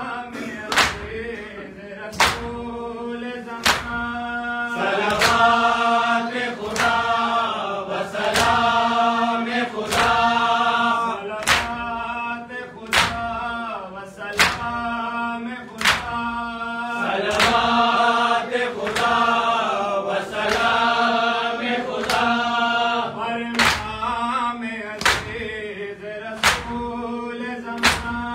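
A group of men chanting a Farsi noha together, with the sharp slaps of two-handed chest beating (do dasti matam) keeping a steady beat under the singing.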